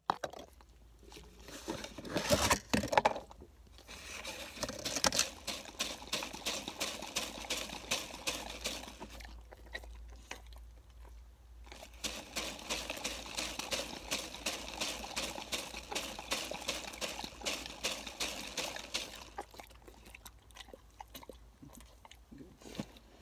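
Dog lapping a drink out of a fountain-drink cup: a quick, wet run of laps that stops for a couple of seconds near the middle and then goes on. A few louder bumps come about two to three seconds in.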